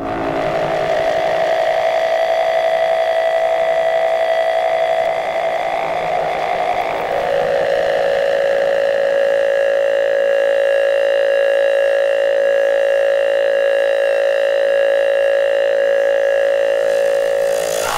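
A loud, sustained drone of steady tones that starts abruptly. Its main pitch steps down slightly about six to seven seconds in, then holds.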